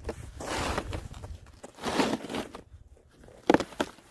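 Snow crunching in three slow bursts about a second and a half apart.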